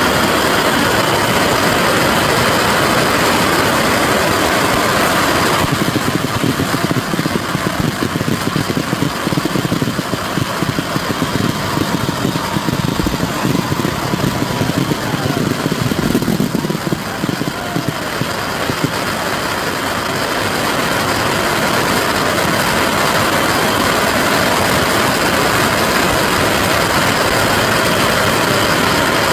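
Massed launch of Saturn Missile fireworks, thousands of small rockets going up together in a continuous dense crackling hiss, with a few faint falling whistles.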